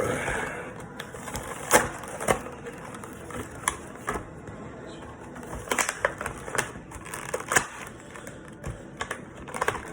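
A box being opened and handled by hand: irregular sharp clicks and knocks with light rustling.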